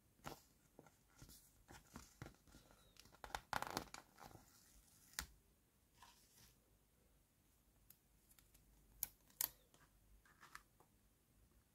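A paper sticker peeled off its backing sheet, with quiet, scattered crackling and rustling of the paper. Near the end there are a couple of sharp light clicks as it is pressed onto a small plastic toy stove.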